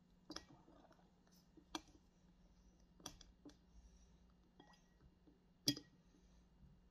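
A black plastic spoon knocking against a ceramic bowl as food is stirred and scooped: about six faint, irregular clicks, the loudest near the end.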